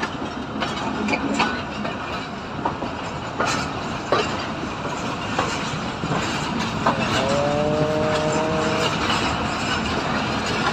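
Pakistan Railways railcar rolling along a station platform, its wheels clicking and knocking irregularly over rail joints and points under a steady running rumble. About seven seconds in, a drawn-out, slightly rising whining tone sounds for about two seconds.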